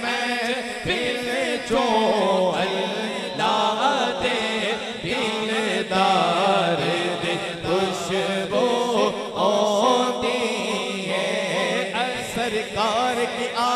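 A man singing a naat (Urdu/Punjabi devotional song) into a microphone, in long ornamented phrases whose pitch slides up and down.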